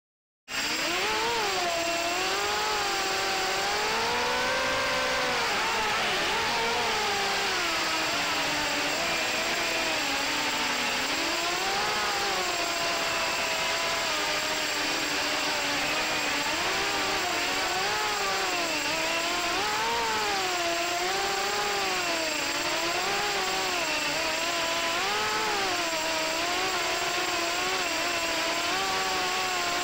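FPV racing quadcopter's electric motors and propellers whining, the pitch rising and falling constantly with the throttle, heard through the onboard camera's microphone. The sound starts abruptly about half a second in.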